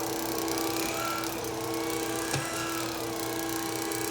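Tineco iFloor cordless wet-dry floor washer running as it is pushed across a floor: a steady motor hum with a whine that wavers up and down. One sharp click about two seconds in.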